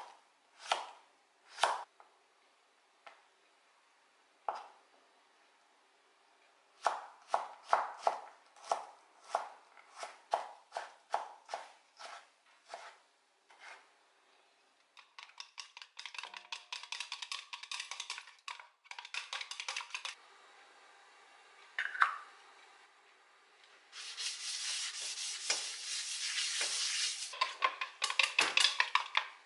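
Kitchen knife cutting a cucumber on a wooden chopping board: a few separate chops, then a steady run of about two cuts a second, then fast, close-spaced cutting as the cucumber is julienned. Near the end a steady hiss sets in, with light knocks in it.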